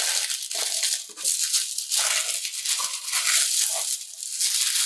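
Crinkly noissue tissue paper being folded and wrapped by hand, a continuous crackling rustle that dips briefly about a second in and again near four seconds.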